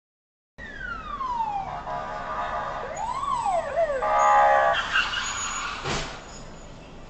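Emergency vehicle siren gliding down in pitch, then sweeping quickly up and down, with a steady tone under it for a couple of seconds. A short sharp knock sounds about six seconds in.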